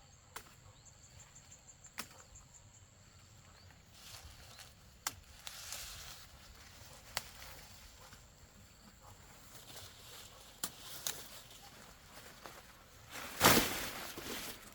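Scattered sharp clicks and light rustling, with a louder burst of rustling noise near the end, over a faint, steady high-pitched tone.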